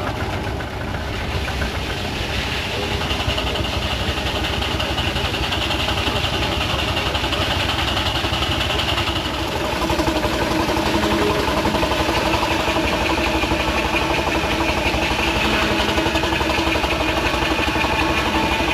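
Half-scale steam traction engines running steadily in tandem, driving a sawmill. A higher whine comes in about two seconds in, and the sound grows louder about halfway through.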